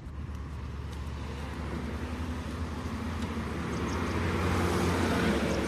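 A motor vehicle on the road: a low engine hum and tyre noise, growing steadily louder as it approaches.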